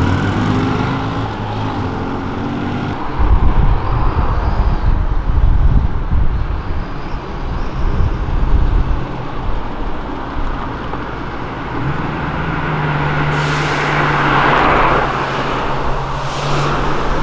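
A motorcycle engine pulling away, then a classic Ford Mustang convertible's V8 driving past with a deep low rumble, loudest from about three to nine seconds in. Later, a steady low hum of other street traffic with a brief hiss near the end.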